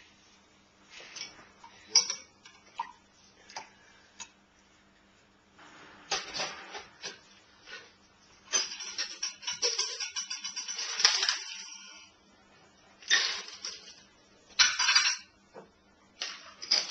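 A metal bar spoon clinks against a tin can and a glass as coconut cream is spooned out, giving a few sharp clinks in the first seconds. Then come longer stretches of clattering and rattling from glassware and a metal shaker tin, the longest about three seconds, and two shorter bursts near the end.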